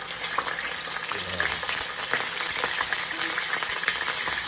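Filet mignon searing in hot vegetable oil in a non-stick frying pan: a steady sizzle with frequent pops and crackles.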